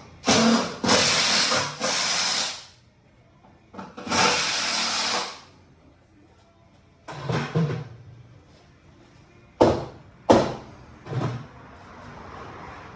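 Power drill run in reverse in short bursts, backing screws out of wall framing: two longer runs of a second or two, then a few shorter bursts and sharp knocks.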